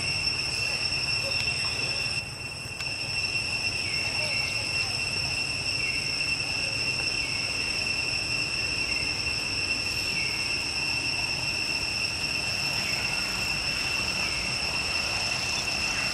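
Steady, high-pitched insect drone running without a break, with faint short calls repeating every second or so.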